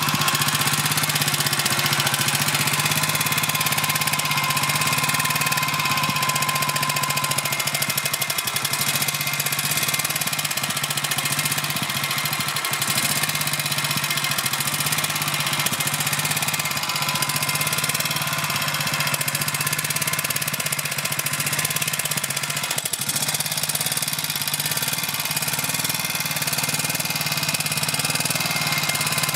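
BSA M20's single-cylinder side-valve engine running steadily at idle. Somewhere in it is a faint, odd noise that stops and comes back, which the owner finds curious and hard to hear.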